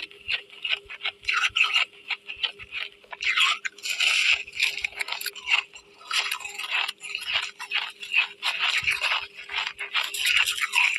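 Chunks of white ice being bitten and chewed close to the microphone: dense, irregular crunching and crackling that goes on throughout.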